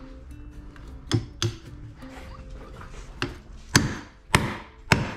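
Hammer blows on a wooden stair stringer as it is squared and fixed in place: two lighter taps about a second in, then a run of harder strikes a little over half a second apart.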